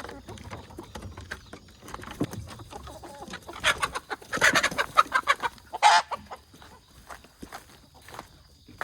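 Chickens calling, with a loud burst of rapid calls for a couple of seconds in the middle.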